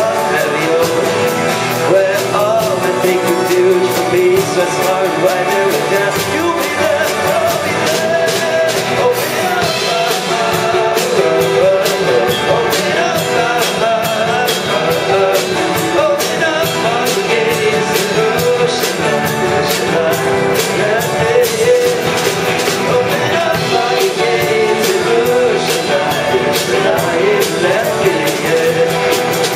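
Live band music with guitar, drums and keyboard: a rock-style passage without sung words, a wavering lead melody over a steady drumbeat.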